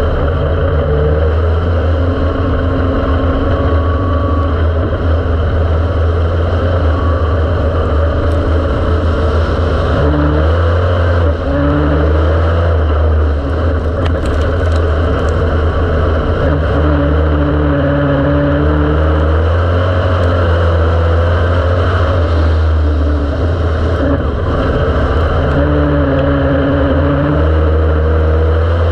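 Dirt-track race car engine heard loud from inside the cockpit at racing speed, its pitch rising and falling over and over as the driver accelerates and lifts around the track.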